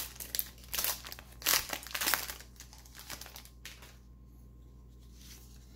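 Wrapper of a 1990s baseball card pack crinkling and tearing as it is opened by hand, a quick run of rustles that dies down after about three and a half seconds.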